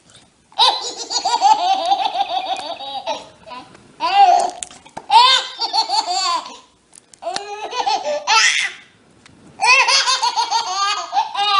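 A baby laughing loudly in about five high-pitched bouts, each a second or more long, with short breaks between them.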